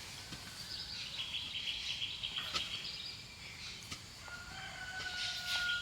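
Faint bird calls in the background, ending in one long held call, with a few light clicks.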